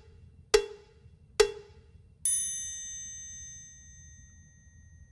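Two short, sharp percussive plinks about a second apart, then a bright, bell-like chime about two seconds in that rings and fades away over two to three seconds.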